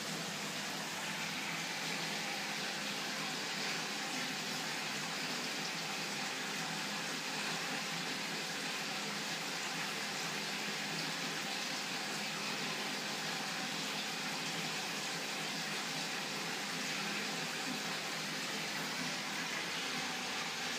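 Steady rush of circulating water in a large freshwater aquarium, from its filter flow, with a faint low hum underneath.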